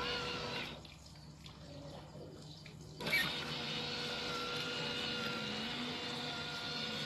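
Electric motors of a 3D-printed robotic lawn mower whining steadily, falling quiet under a second in as the mower stops mowing. About three seconds in they start again with a click as it turns and drives on.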